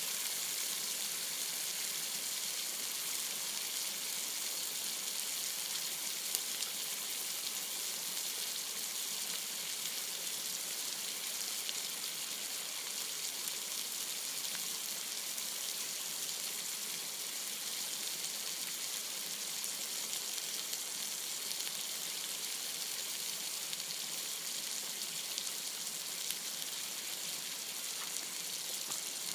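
Meat frying in a lot of oil in a frying pan: a steady sizzle with a few small pops.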